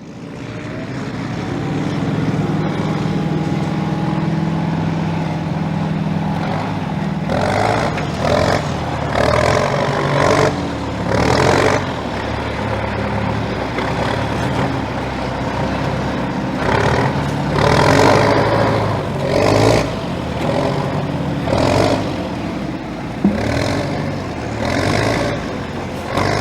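Toy-scale HUINA 1:16 radio-controlled wheel loader working: a steady motor hum for the first several seconds, then a series of short hissing, scraping bursts at uneven intervals.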